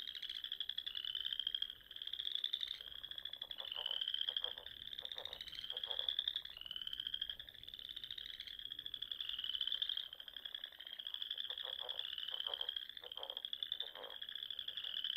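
Australian green tree frogs calling: a continuous series of high, pulsed trilling calls about once a second, with two runs of lower, rapid pulsed croaks, one a few seconds in and one near the end.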